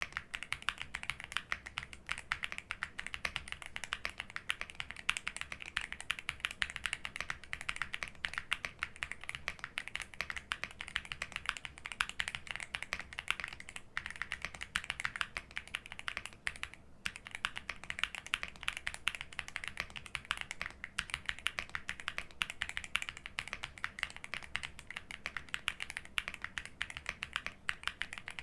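Fast continuous typing on a Monka A75 Max aluminium-cased mechanical keyboard with Snow linear switches and double-shot PBT keycaps, in stock condition: a dense run of keystroke clicks, with brief pauses about 14 and 17 seconds in.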